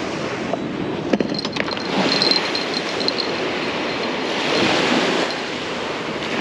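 Small surf waves breaking and washing up a sandy beach, a steady rushing that swells and eases, with some wind on the microphone. A few sharp clicks come about a second in.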